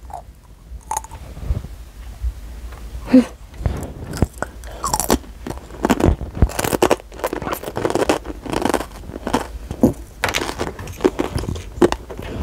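A child crunching and chewing Sun Chips multigrain chips close to a clip-on microphone: irregular crisp crunches, sparse at first and coming thick and fast from about three seconds in.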